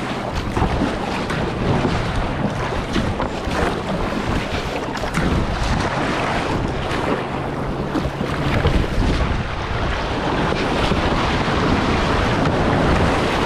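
Wind buffeting the microphone over waves and water splashing around a kayak on the open sea. A low steady hum runs underneath and stops about eight and a half seconds in.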